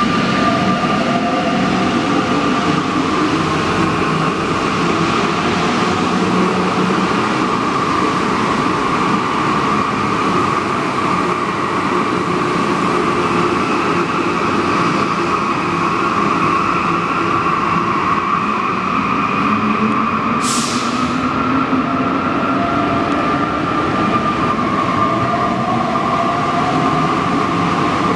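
Alstom NS-93 rubber-tyred metro train running through the station, with an electric whine that glides up and down in pitch over a steady rumble. A short, sharp hiss about twenty seconds in.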